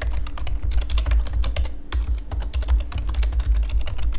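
Fast typing on a computer keyboard: a dense, uneven run of key clicks.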